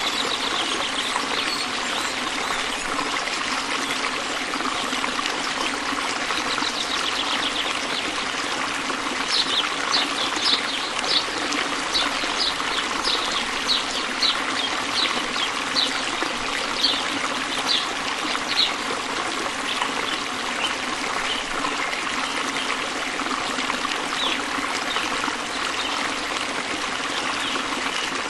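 A stream trickling steadily, with a bird chirping over it in a run of short high notes, about two a second, from about nine seconds in for some ten seconds.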